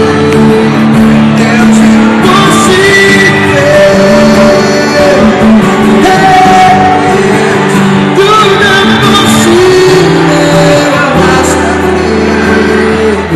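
Live band music: acoustic guitar, electric bass and keyboard playing together with a voice singing over them. A deep bass note is held near the end.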